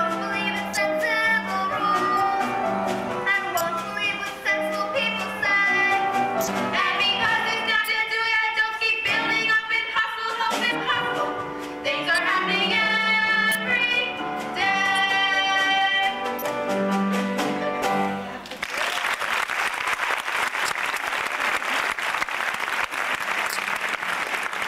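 Girls singing a song from a stage musical with instrumental accompaniment. About three-quarters of the way through the song ends and the audience applauds.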